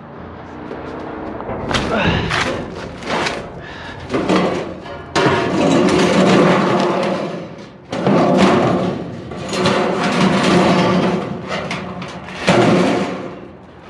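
Heavy chunks of scrap steel clanking, thudding and scraping against one another as they are handled, with sustained metallic ringing.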